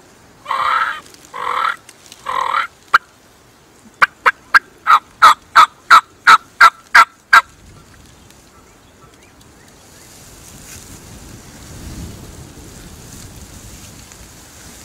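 Hunter's turkey call imitating a hen: three drawn-out yelps, then a quick, even run of about a dozen short, sharp notes. The calling stops about halfway through, leaving wind noise.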